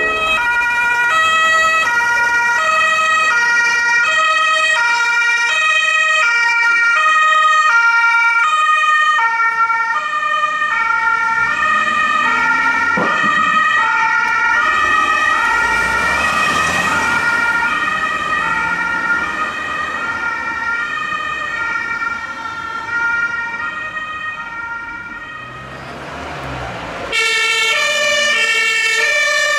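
German two-tone emergency vehicle horn (Martinshorn) sounding continuously, alternating between a high and a low note. It fades somewhat, then comes back abruptly louder near the end.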